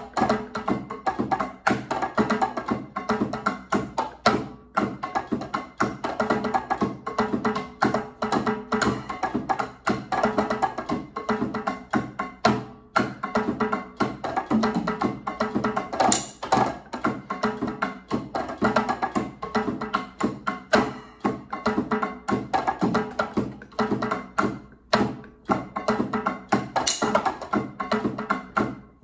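Electronic drum kit played with sticks, its module set to Latin percussion sounds: a busy, unbroken run of sharp, woody hits.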